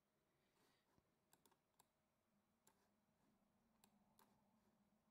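Near silence with about six faint computer mouse clicks, two of them close together like a double click.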